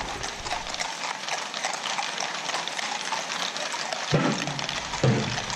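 Hooves of a large mounted police escort clattering on the street, many horses walking at once, with a few louder short low sounds about four and five seconds in.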